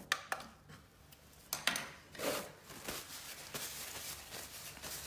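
Scattered light clicks and rustles of handling: a couple of sharp clicks at the start, brief scuffs a second or two in, then a run of small ticks.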